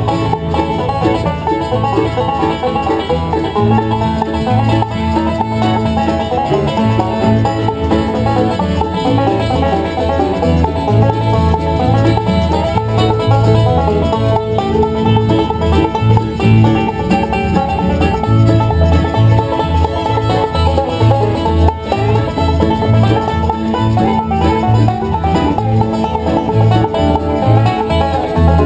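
Bluegrass band playing live: banjo picking with fiddle and acoustic guitars, in a steady rhythm.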